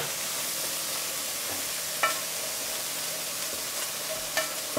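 Steady frying sizzle as seared shrimp are moved from a hot ribbed grill pan into a pot of cooking onions. There is a sharp click of a utensil on the pan about two seconds in and two more near the end.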